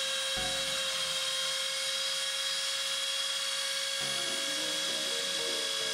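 Dremel rotary tool running at high speed as the spindle of a mini CNC 2417 router, a steady high whine. Shortly after the start and again from about four seconds in, the machine's stepper motors add tones that step up and down in pitch as the axes move at the beginning of a surfacing pass on wood.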